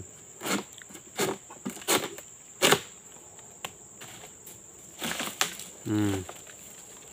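Long-pole harvesting sickle pulled against an oil palm's crown, cutting with four sharp, cracking strokes about two-thirds of a second apart, then more scraping cuts near the end. A steady high insect drone runs underneath.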